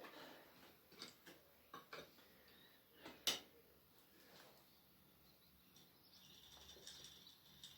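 Faint, scattered metal clicks and knocks, about half a dozen, the sharpest a little past three seconds in: a spanner working a reusable hydraulic hose fitting as it is tightened.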